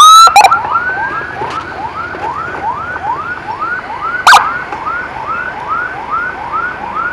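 Emergency vehicle sirens during an ambulance escort: a very loud close siren cuts off about half a second in, leaving a quieter siren yelping, a short rising wail repeated about three times a second. A sharp loud blast about four seconds in.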